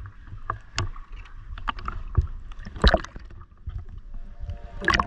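Sea water lapping and splashing around a camera at the surface, with irregular slaps as small waves break over it.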